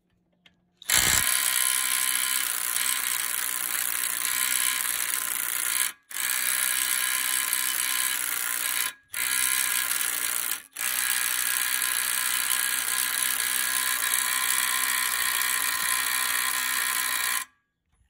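Milwaukee 2453-20 M12 Fuel brushless impact driver hammering at full power in four long runs, with brief stops about 6, 9 and 11 seconds in. It is working on a fastener set at 160 ft-lb, which proves a little too much for it.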